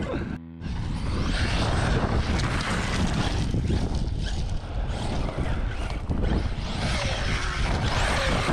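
Heavy wind noise on the microphone over an Arrma Kraton 6S V4 RC monster truck with a brushless motor, driving on loose gravel; the noise drops briefly just under a second in.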